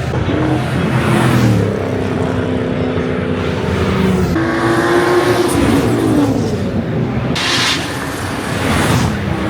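Race car engine under hard acceleration. Its pitch climbs, drops back and climbs again several times, then falls away.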